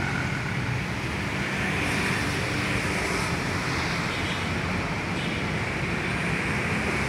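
Triumph Street Twin's 900 cc parallel-twin engine idling steadily through its aftermarket exhaust.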